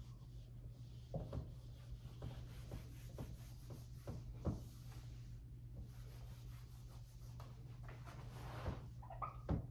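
Whiteboard eraser wiping dry-erase marker off a whiteboard in scrubbing strokes, with a few light knocks against the board.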